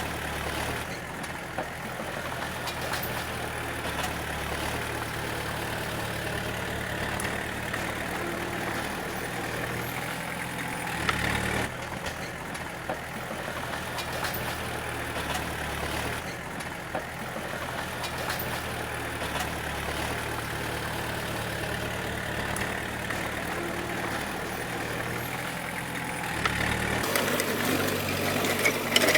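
D20 crawler bulldozer's diesel engine running steadily, its note shifting briefly a couple of times and growing louder near the end.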